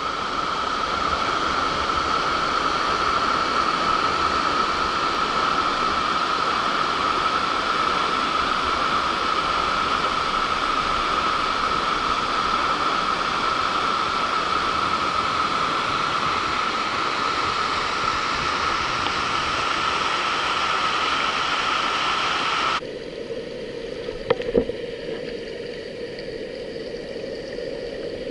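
Waterfall rushing steadily. About 23 seconds in the sound cuts suddenly to a quieter, lower-pitched rush, with a couple of brief knocks soon after.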